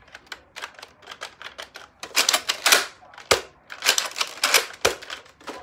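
Plastic toy foam-dart blaster being handled and primed: a run of quick sharp clicks, then louder clacking and rattling from about two seconds in.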